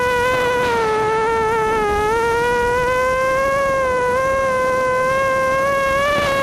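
Racing quadcopter's four Cobra 2204 2300kv brushless motors spinning 5-inch HQ props, heard up close from the quad itself: a steady buzzing whine whose pitch dips and rises slightly as the throttle changes.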